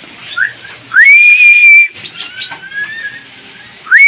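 A person whistling to call a pet lovebird: a short upward chirp, then a loud whistle that rises and holds for about a second, and another just like it starting near the end.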